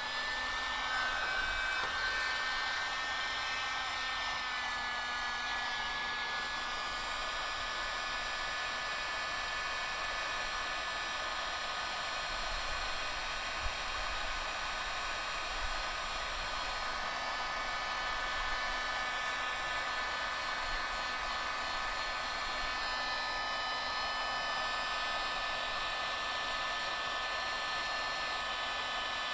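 Hot-air dryer blowing steadily, a hiss with a constant whine, as it heats adhesive-lined heat-shrink tubing over a soldered wire joint to shrink it and melt its glue into a waterproof seal.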